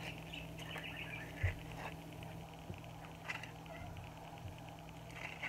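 Quiet handling sounds as the cubes of a scored avocado half are pressed out of the skin into a glass bowl: a few faint soft taps and one small thump about a second and a half in, over a low steady hum.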